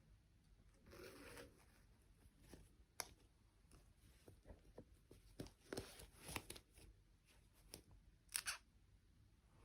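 Faint handling noises of toy packaging being opened: scattered sharp clicks and short crinkly rustles. The loudest is a brief rustle near the end.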